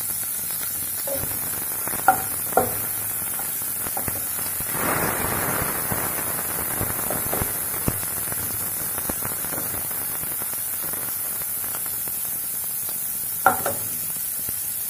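Chopped onion and green chillies sizzling in hot mustard oil in a nonstick frying pan, stirred with a wooden spatula. The spatula knocks against the pan twice early on and twice near the end, and the sizzling grows louder for about a second around five seconds in.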